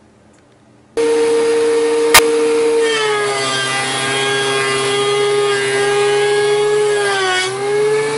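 DeWalt benchtop thickness planer running with a steady high whine, cutting in abruptly about a second in, with a single sharp click shortly after. From about three seconds in its pitch drops slightly as a rough wild black cherry board feeds through under load. It dips once more and rises again near the end.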